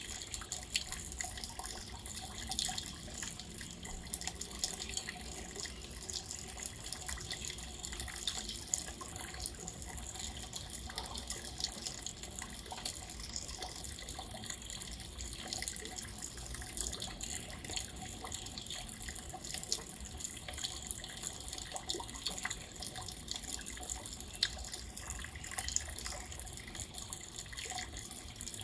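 Rain falling steadily, a constant wash of water noise scattered with many sharp ticks of individual drops.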